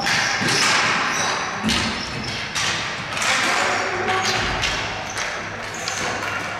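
Ball hockey play: a string of irregular knocks and clacks from sticks striking the ball and the floor, each ringing on in the echo of the hall.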